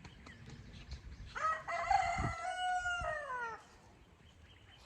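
A rooster crowing once, a single long call that starts about a second and a half in and trails off after about two seconds.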